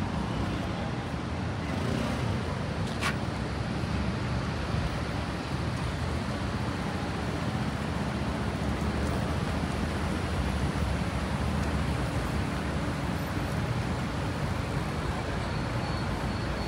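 City street traffic: a steady low rumble of passing cars, with one brief sharp sound about three seconds in.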